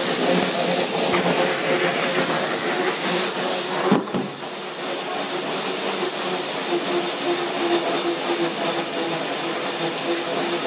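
Dog treadmill running steadily under a pit bull: a continuous mechanical running noise with a steady hum, and a single sharp knock about four seconds in.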